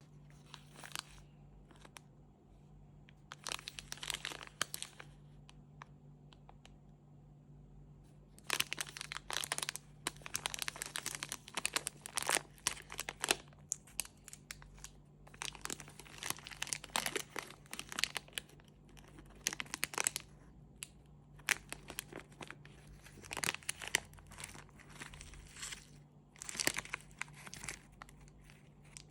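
Chocolate wrappers being crinkled and torn open by hand, in repeated bursts of crackling with short pauses between them.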